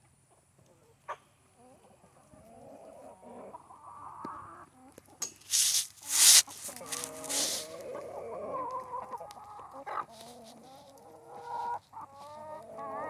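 A flock of chickens clucking as they peck at apples on the ground. A few loud, scratchy noise bursts come about five to seven seconds in, and a quick run of rising calls comes near the end.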